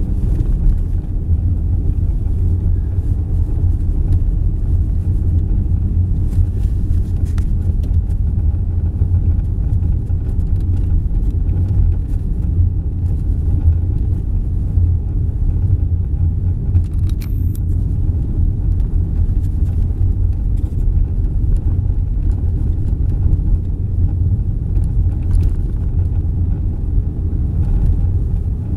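Car driving along snow-covered streets, heard from inside the cabin: a steady low rumble of engine and tyres.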